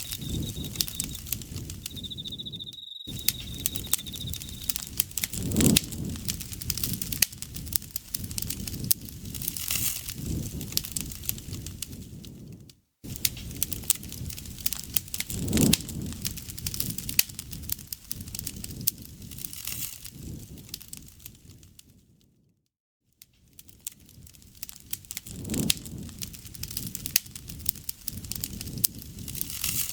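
Campfire burning with dense crackling and sharp pops from the burning wood, swelling and easing every few seconds. An insect trills steadily at a high pitch for the first few seconds. The sound cuts out briefly three times.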